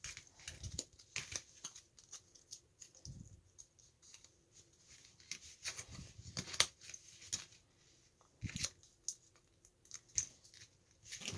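Small plastic Kinder Joy toy parts being handled and fitted together: scattered light clicks and taps, with a few soft thumps.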